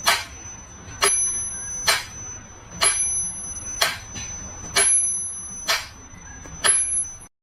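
A high metallic ding struck about once a second, each strike ringing on with a thin high tone until the next.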